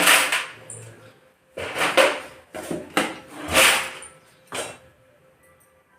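Kitchen utensils and cookware knocking and scraping: about five loud clattering bursts over the first five seconds.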